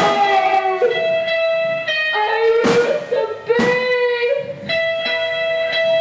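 Live rock band playing: electric guitar holding long sustained notes, with a few drum and cymbal crashes, the first near the start and two more in the middle.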